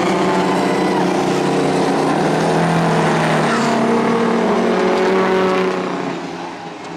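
Engines of racing semi trucks running hard together, several engine notes overlapping and shifting in pitch as the trucks race past. The sound is loud, then drops away about six seconds in.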